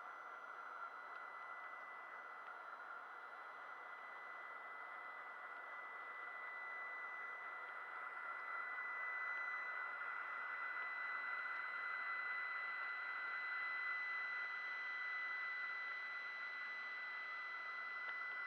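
Small vacuum-cleaner motor running steadily: a high whine over an airy hiss, getting slightly louder about halfway through.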